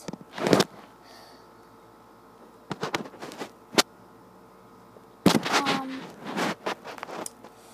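Handling noise from a phone held in the hand: a few sharp knocks and bumps against the device, the loudest about five seconds in, between stretches of quiet room tone.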